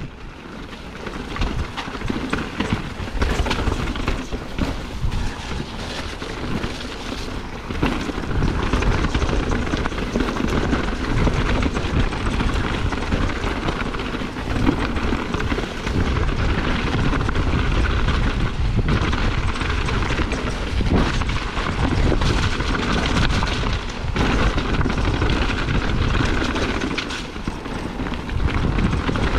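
Mountain bike riding fast down a rough, rocky dirt trail: a steady rush of wind on the microphone and rumble of tyres on dirt, broken by frequent knocks and rattles as the bike hits rocks and roots.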